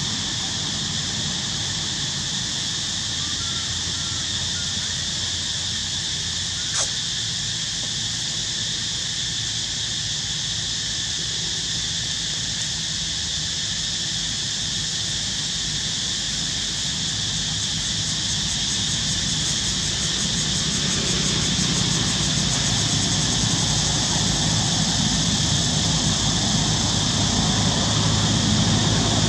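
Steady outdoor ambience: an even high-pitched hiss, with a low engine-like rumble that grows louder over the second half, and a single sharp click about seven seconds in.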